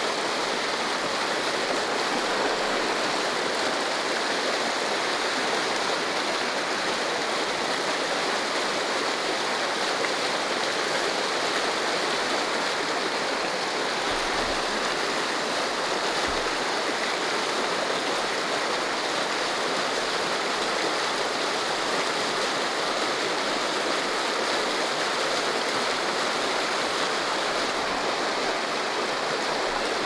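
Shallow mountain river rushing over and around granite boulders in a riffle: a steady, unbroken rush of white water.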